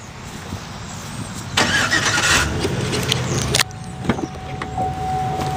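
The Avalanche's 5.3-liter V8 started by remote start: it cranks and catches about a second and a half in, then runs. About three and a half seconds in there is a sharp click, followed by a steady high chime tone over the running engine.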